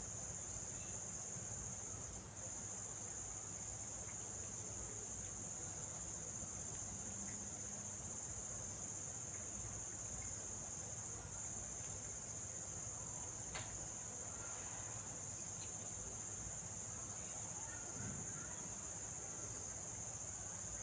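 Crickets trilling in a steady, unbroken high-pitched drone, with a faint click about two-thirds of the way through.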